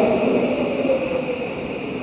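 Electric commuter train's motors whining over its running noise, the whine falling steadily in pitch and the sound fading as the train slows.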